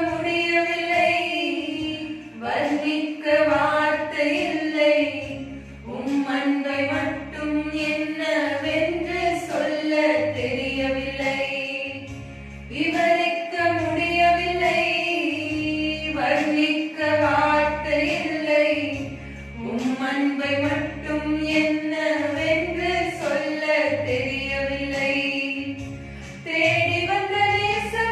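Two women singing a Tamil Christian song into a microphone, one melody line in long held phrases, over a steady low beat.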